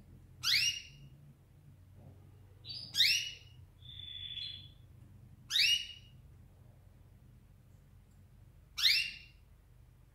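Canary calling: four short call notes a few seconds apart, each sweeping quickly upward in pitch, with one brief steady high note between the second and third.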